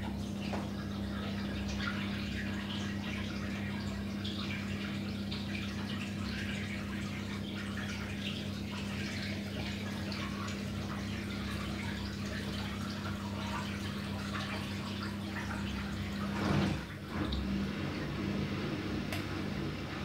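Gorenje SensoCare washing machine with its drum standing still, a steady low electrical hum over running, trickling water, as one part is run on its own during a service-mode test. A short louder rush of water comes near the end, after which the hum turns uneven.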